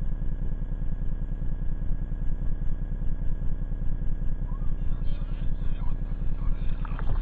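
Wind buffeting the microphone: a steady low rumble with a rapidly fluttering level, with faint voices from about five seconds in.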